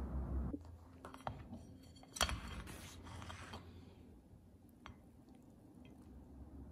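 Faint clicks and taps of a small glass bowl being handled on a ceramic plate, with one sharper knock about two seconds in followed by a light rustle of plastic wrap.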